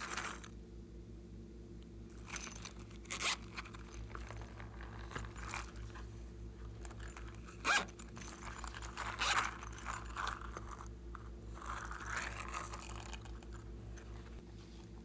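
Scratchy rubbing and crunching of hands squeezing and bending soft cactus-shaped toys, in irregular bursts, with one sharp click a little under eight seconds in.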